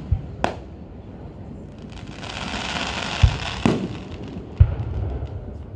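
Aerial fireworks shells bursting: a couple of sharp bangs near the start, then deep booms a little past three seconds and again about a second later, with a sharp bang between them. A stretch of hiss runs through the middle and scattered crackles follow.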